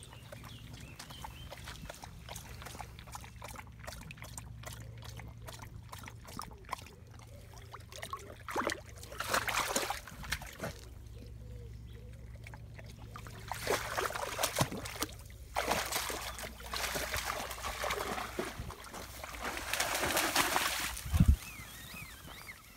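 Black Labrador wading in a shallow stream, water sloshing and trickling around it, with several bursts of louder splashing in the second half and a short thump near the end.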